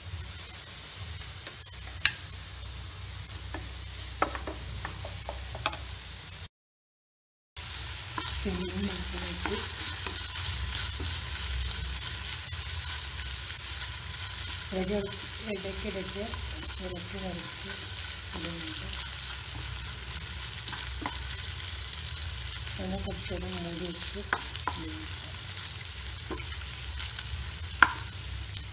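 Marinated prawns sizzling in hot oil in a nonstick pan as they are stirred with a wooden spatula. The spatula knocks against the pan now and then. The sizzling is louder after a brief break about a quarter of the way in.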